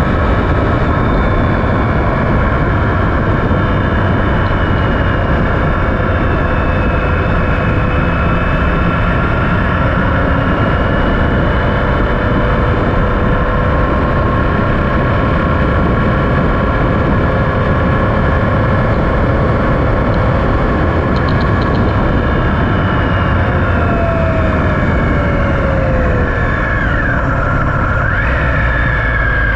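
Triumph Speed Triple 1050's three-cylinder engine running steadily at road speed under a heavy rush of wind and road noise, with a few dips and rises in pitch near the end.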